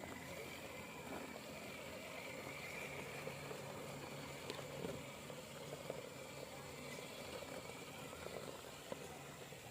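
Radio-controlled scale truck driving, its small motor and gears whirring steadily with a low hum that comes and goes, and small clicks and knocks from the running gear.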